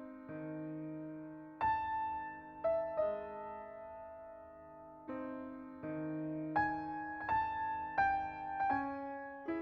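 Slow, gentle solo piano music: soft chords struck one after another and left to ring out.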